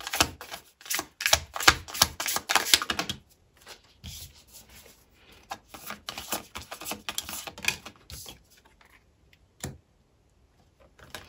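Tarot cards being shuffled by hand: a quick run of flicking, snapping clicks for about three seconds, then softer rustling with scattered clicks.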